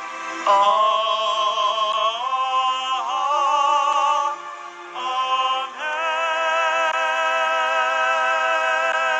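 Closing phrase of a Tagalog church hymn sung with a wide vibrato over a steady accompaniment. The voice moves through a few held notes and ends on one long sustained note.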